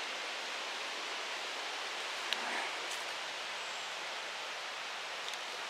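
Steady, even hiss of forest ambience, with a couple of faint ticks a little past the middle.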